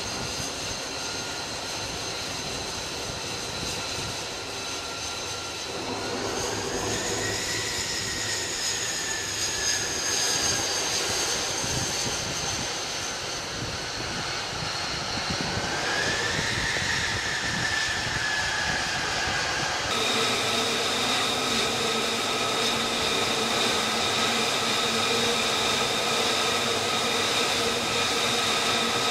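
An F-35C's single F135 jet engine whines at low taxi power. Its pitch rises and falls back twice as power comes up briefly, then holds a steady whine.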